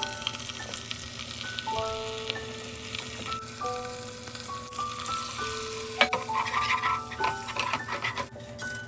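Food sizzling in a frying pan, with a sharp clack about six seconds in, under background music of simple held notes.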